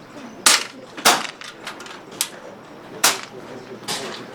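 Air rifles firing on a competition line: about four sharp, irregularly spaced shots.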